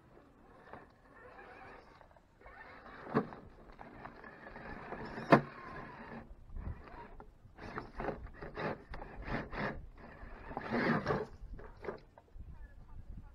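Electric RC rock crawler, its stock 16-turn 540 motor and gear drivetrain whining in bursts as the truck creeps over sandstone, with tyres and chassis scraping and knocking on the rock. Two sharp knocks come about three and five seconds in, and a run of short throttle bursts follows.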